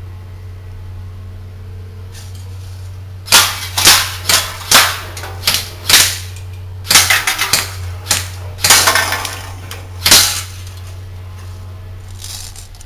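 Airsoft electric rifle firing strings of BBs at aluminium drink cans, with sharp metallic hits of the BBs on the cans in irregular clusters from about three seconds in until about ten seconds in, over a steady low hum.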